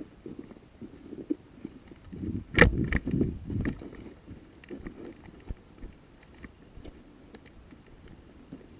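Footsteps and gear rustling from a player moving on foot, in an irregular patter of low thuds and scuffs. About two and a half seconds in there is a sharp knock, followed by about a second of louder scuffing and clatter.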